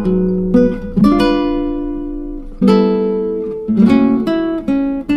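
Background music: acoustic guitar playing plucked and strummed chords, two of them left to ring out for over a second.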